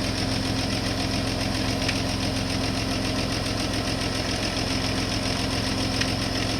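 Rover KV6 V6 engine idling steadily, with a rattle from the inlet manifold, a common fault on these engines.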